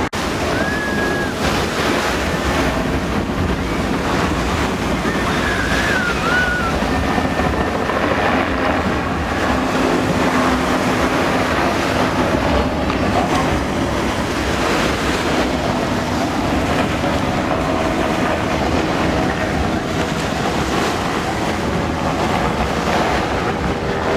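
Wind buffeting the microphone over a steady distant engine drone from racing powerboats and a helicopter.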